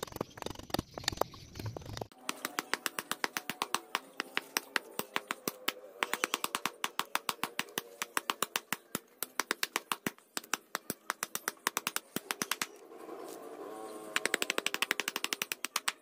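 Long knife blade shaving and scraping a wooden slingshot handle by hand, in quick repeated strokes about four or five a second that speed up near the end.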